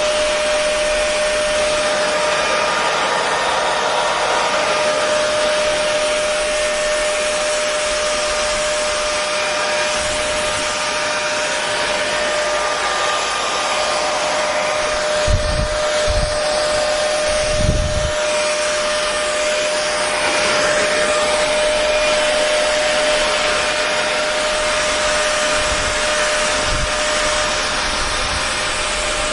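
Hair dryer running steadily: an even, full rushing hiss with a constant motor whine. A few brief low bumps come about halfway through.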